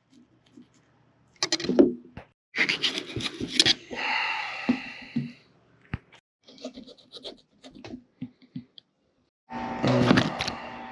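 Fillet knife scraping and cutting through a pompano on a plastic table top, in short bursts with quiet gaps between, then fillets being handled in a tub of water near the end.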